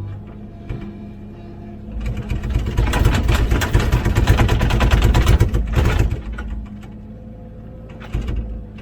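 Komatsu PC16 mini excavator's diesel engine running steadily, with a loud rattling scrape of the bucket working through rubbly soil and debris from about two to six seconds in, and a brief shorter rattle near the end.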